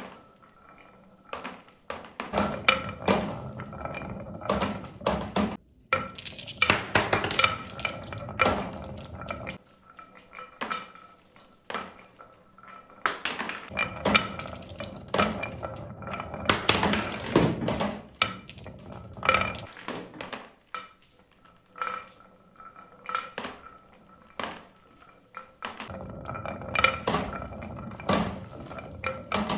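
Marbles rolling and clattering down a marble run track: many quick clicks and knocks, with stretches of dense rolling rattle that build up and die away several times.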